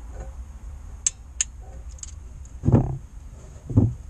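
Hand tools on metal at the engine's rear crankshaft seal housing: two sharp metallic clicks, then two heavier low knocks about a second apart, the loudest sounds here, over a steady low hum.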